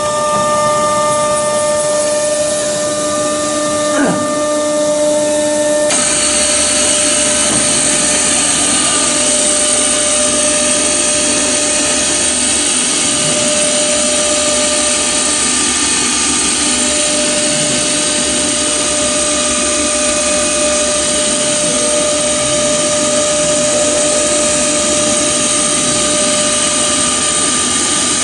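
CNC drilling machine running with a steady whine over a hiss. About six seconds in the sound suddenly gets fuller, as a louder hiss and a high-pitched whine join and hold steady.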